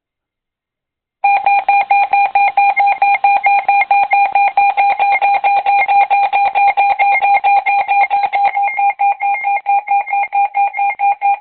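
Emergency alert tone: a loud, steady electronic tone starting about a second in and pulsing rapidly, several beats a second, as the warning signal that precedes a broadcast alert message.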